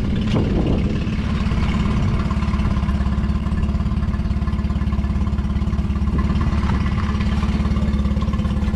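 Small kicker outboard motor idling steadily on flush earmuffs, running to flush salt water out of its cooling system with a salt-neutralizing solution.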